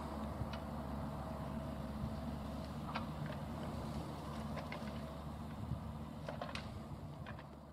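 Kubota mini excavator's diesel engine running steadily in the distance, with a few sharp clicks and cracks from the tree shearing work. The sound fades down over the last second or so.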